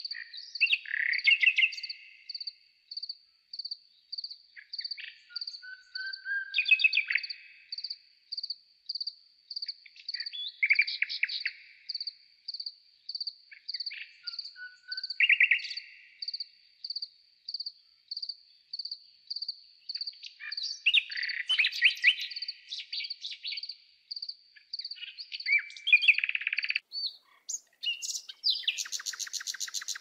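Garden birds singing and calling, with short phrases every few seconds over a high chirp that repeats steadily about twice a second. A rasping call sounds near the end.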